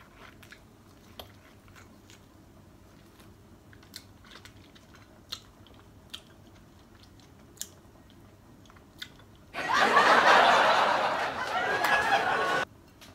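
A lemon slice being bitten and chewed: scattered small wet clicks and smacks of the mouth. About ten seconds in, a loud burst of noise starts abruptly, lasts about three seconds and cuts off just as suddenly.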